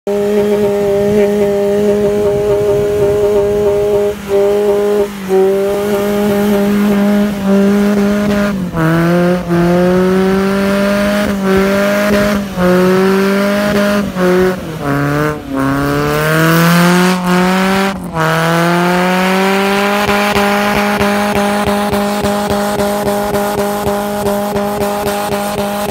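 Suzuki Sidekick's swapped-in BMW M42 1.8-litre inline-four engine running at high revs as the 4x4 ploughs through deep snow. The engine note holds steady for long stretches, drops sharply and climbs back up several times in the middle, then holds steady again.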